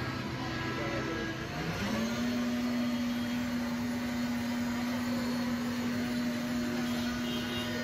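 A motor running steadily with a clear hum; its pitch rises about two seconds in and then holds level.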